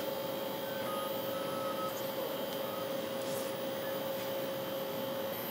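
3D food printer running: the motors moving its print head give a steady whine, with short higher-pitched chirps that step from pitch to pitch as the head changes speed and direction.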